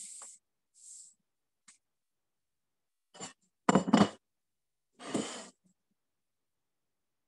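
Dishes handled on a kitchen counter: a cluster of sharp knocks around four seconds in, with a scraping rustle a second later, and soft breathy hisses near the start.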